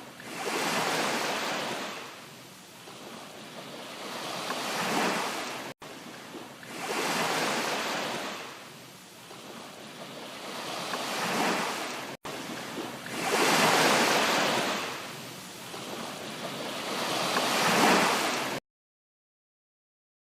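Rushing water noise that swells and falls back every three to four seconds, breaking off twice for an instant and cutting out to silence near the end.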